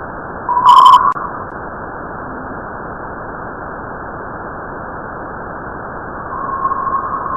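Steady hiss with a short, loud tone about half a second in, and a tone that swells near the end: a space sound of the kind made by turning spacecraft radio or plasma data into audio.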